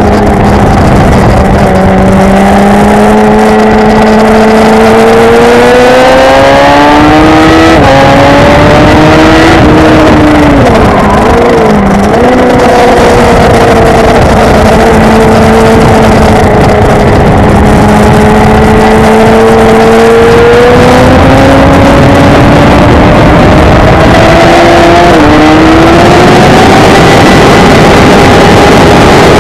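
Onboard sound of a Yamaha sport motorcycle engine at racing speed, with heavy wind rush on the microphone. The engine note climbs steadily under acceleration and drops sharply at upshifts about 8 and 25 seconds in. Around 10 to 12 seconds it dips and wavers as the bike slows for a corner, then holds a steady pitch before climbing again.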